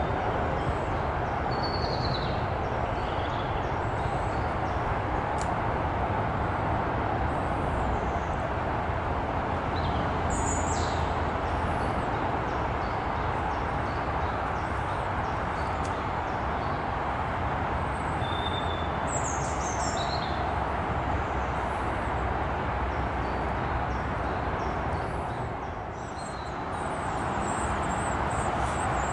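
A steady rushing background noise that dips briefly near the end, with scattered short, high chirps and calls from small songbirds.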